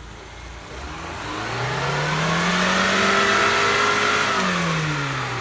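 Off-road vehicle engine revving: the pitch climbs over about two seconds, holds, then drops back near the end, getting louder and then fading.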